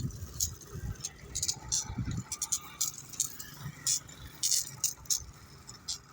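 Irregular clattering and rattling of grit and stones during road surfacing, over an uneven low rumble with a few duller thuds.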